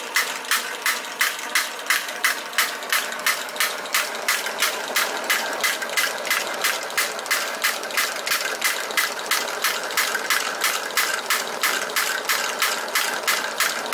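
Tarot Stirling engine running under a burner flame and driving a Wilesco toy drop hammer by belt: a regular clicking, two or three a second, over a steady hiss.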